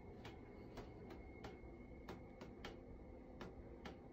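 Water from a ceiling leak dripping onto a hard surface: faint sharp ticks at uneven spacing, about two a second.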